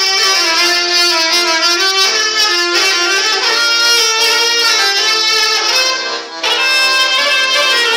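Clarinet playing a melody over an accordion accompaniment, with a short break in the sound about six seconds in.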